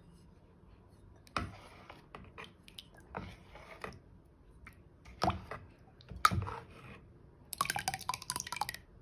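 Thin semolina dosa batter stirred with a steel ladle in a bowl: wet squishing with four sharp knocks of the ladle against the bowl. Near the end, a spattering, dripping splash of about a second as a ladleful of runny batter is poured back in.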